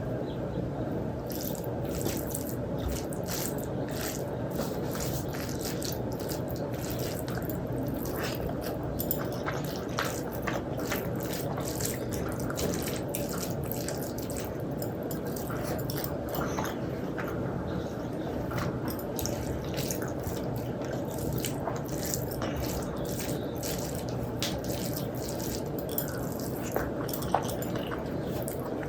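Wet eating sounds from a meal of rice and dal: many small sticky clicks and squelches, over a steady low background noise.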